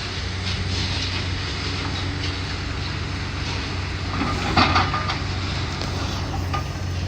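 Heavy demolition machinery running steadily with a low engine hum and ongoing clatter of debris. About four and a half seconds in there is a louder crash with a brief metallic screech.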